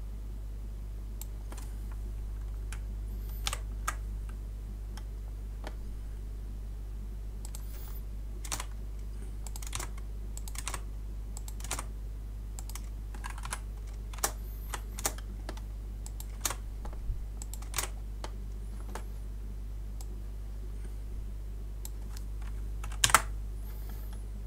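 Computer keyboard keystrokes and clicks, scattered and irregular as text is selected and retyped, with a louder pair of clicks near the end, over a steady low electrical hum.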